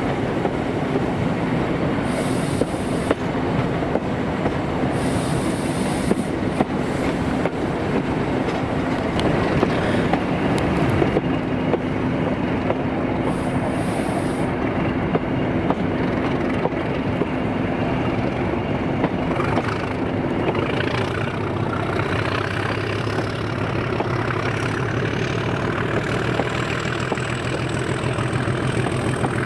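Diesel-hauled train running along the track, a steady rumble of wheels on rail. In the last third a whine rises steadily in pitch.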